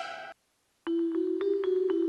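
Arturia Pigments 2 software synthesizer presets. A sustained string-like sound dies away, and after a short silence a keyboard-like preset comes in, playing quick repeated short notes, about three to four a second, over a held low note.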